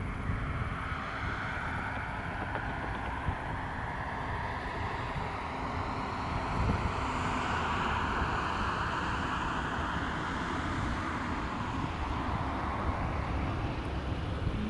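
A tow vehicle's engine runs steadily while pulling the Cessna 208 Caravan, whose own turbine is shut down. Wind rumbles on the microphone throughout.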